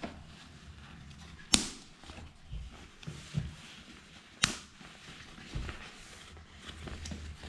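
Handling of a rain jacket: two sharp clicks about three seconds apart, with faint rustling and a few soft knocks in between.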